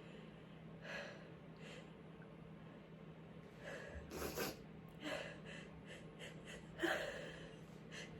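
Stifled sneezes and short gasping inhales, brought on by chhinkni snuff. There are several separate catching breaths and muffled sneeze bursts, the loudest about seven seconds in.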